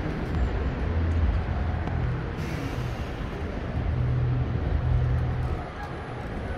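Street traffic: engines of passing vehicles rumbling, swelling and fading, with a short hiss about two and a half seconds in.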